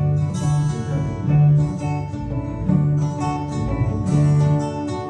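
Acoustic guitar strumming chords in the instrumental close of a song, with no singing.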